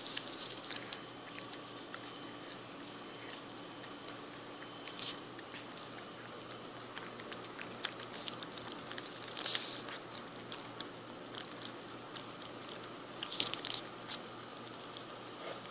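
Tabby cat eating tuna from the can: faint chewing and licking with many small clicks, and a few short, louder bursts of noise.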